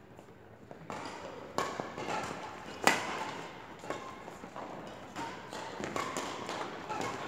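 Badminton rackets striking shuttlecocks: a scattering of sharp smacks at irregular intervals, the loudest about three seconds in, echoing in a large sports hall.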